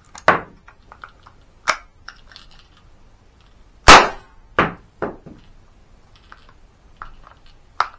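A!CTION C96 Red9 cap-firing model gun: a few metallic clicks as the bolt is worked by hand, one sharp cap shot about four seconds in, then a couple of clacks from the action. In this test firing the bolt keeps riding up onto the lock frame and jamming.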